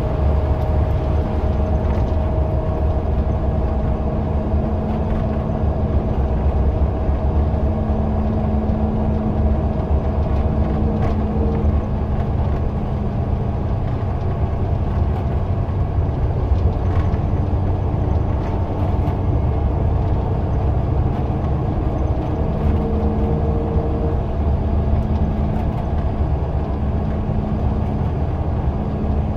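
Scania L94UB city bus's diesel engine running steadily with a deep, continuous drone, a humming tone coming in about a second in, fading past the middle and returning later.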